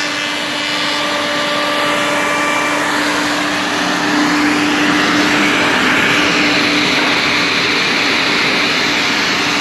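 Wood shaper (spindle moulder) running, a steady hum under a loud, continuous rushing machine noise that swells a little about three to four seconds in.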